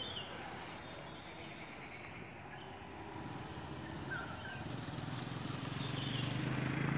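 A low engine hum grows steadily louder from about three seconds in as a train approaches along the line, with a few small birds chirping over it.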